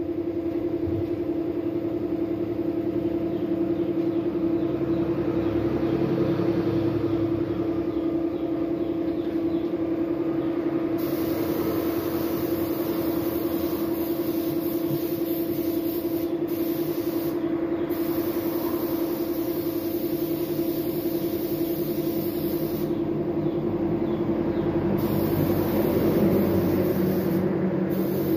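Gravity-feed paint spray gun hissing in spells of a few seconds as the trigger is pulled and released, starting about a third of the way in. Under it runs the steady hum of the air compressor feeding it.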